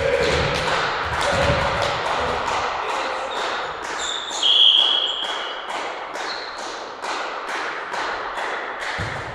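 Rhythmic clapping in a sports hall, about three claps a second, over cheering. A short steady whistle blast about halfway through, likely the referee's whistle for the serve.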